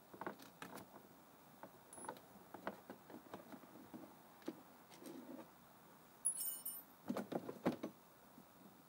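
Hands handling a ride-on toy car's electric motor and plastic gearbox housing: scattered clicks and knocks of plastic and metal parts, a brief high metallic jingle about six seconds in, then a cluster of louder knocks near the end.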